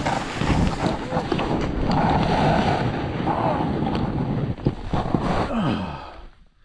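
Wind rushing over the camera microphone and a snowboard scraping and carving through snow on a fast descent. The noise dies away near the end as the board slows.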